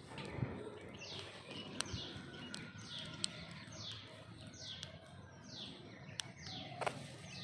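A high chirping call, each chirp sliding down in pitch, repeated about once a second, with a few sharp clicks in between.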